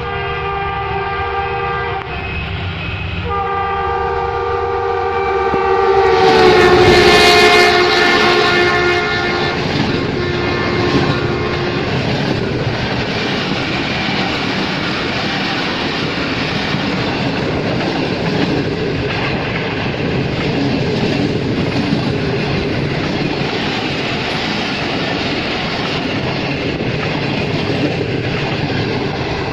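Diesel locomotive's horn chord sounding in long blasts as the express approaches, loudest and dropping in pitch as the locomotive passes about seven seconds in, then dying away. The passenger coaches then rush past at speed with a steady rumble and clatter of wheels on the rails.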